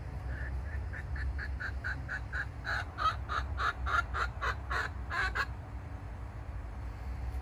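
Silkie chicken clucking in a long, rapid run of short notes, about four to five a second, louder midway and stopping about two seconds before the end.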